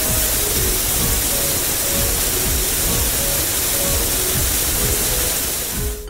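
Shower-head water spray rinsing off soap suds, a steady hissing rush that cuts off suddenly at the end, with soft background music notes underneath.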